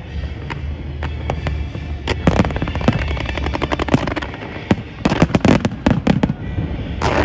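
Fireworks display: a steady stream of bangs from aerial shells, with thick runs of fast crackling about two seconds in and again around five to six seconds.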